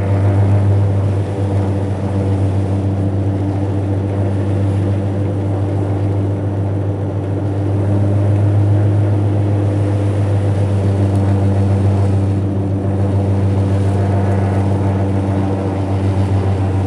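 Car driving on snow chains: a steady, loud low drone with a hum that sounds like an airplane.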